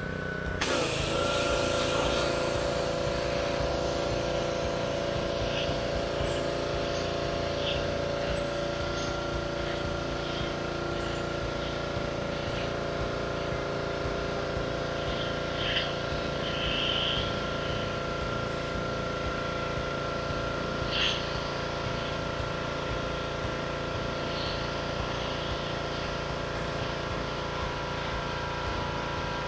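Pressure washer running steadily. About a second in its pitch drops slightly and a hiss of spray comes in as it takes up load.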